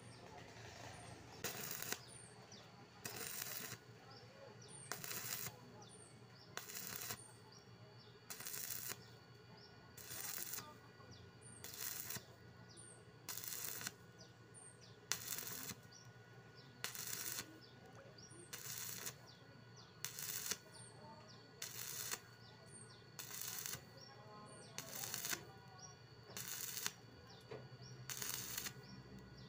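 Stick welding on thin hollow square steel tube in short stitches: the arc crackles in bursts of about half a second, breaking and restriking roughly every second and a half to two seconds, over a low steady hum. This stop-start way of running the arc keeps the heat down so the thin wall does not burn through.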